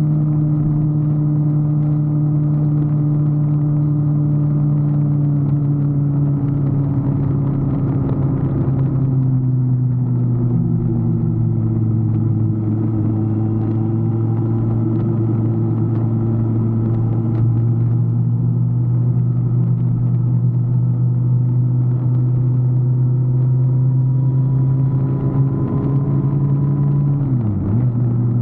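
A motor vehicle's engine running steadily, heard during a ride, as a low, even drone whose pitch drops slightly about a third of the way in and dips briefly near the end.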